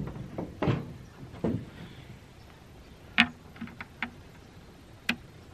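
Handling sounds of an RJ45 Ethernet plug being fitted into the port of an outdoor Wi-Fi access point: a few soft rustles and bumps at first, then a handful of short, sharp plastic clicks and taps, the loudest about three seconds in and again near the end.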